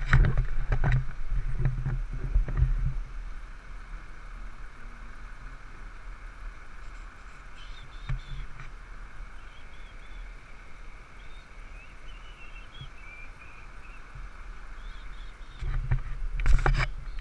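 Wind buffeting the microphone in low rumbling gusts during the first few seconds and again shortly before the end. Between the gusts a faint steady outdoor hum runs on, with a few small chirps.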